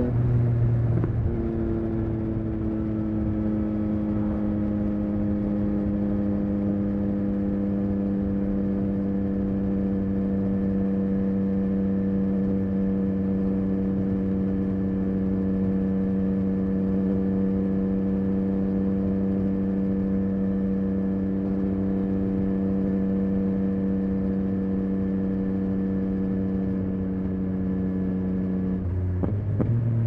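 Yamaha XSR900's 890 cc inline three-cylinder engine breathing through a Spark aftermarket exhaust, heard while riding: after a brief settle it holds one steady note, cruising at a constant engine speed. Near the end the note breaks and starts to rise as the throttle opens again.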